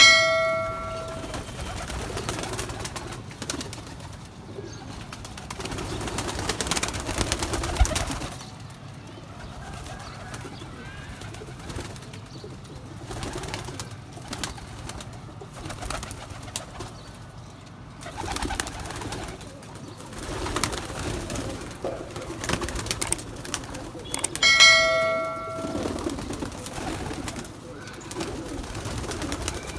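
Domestic fancy pigeons cooing in their breeding pens. Twice, at the start and again near the end, a loud, clear ringing tone sounds for about a second.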